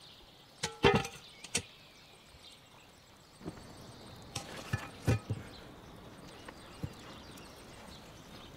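Hard clanks and knocks of a cast-iron Dutch oven and its heavy lid being handled and set down on rock. There is a loud cluster about a second in, some with a short metallic ring, and a second cluster of knocks around the middle.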